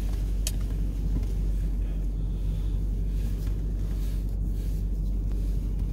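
L322 Range Rover running at low speed, heard from inside the cabin as a steady low rumble, with a single sharp click about half a second in.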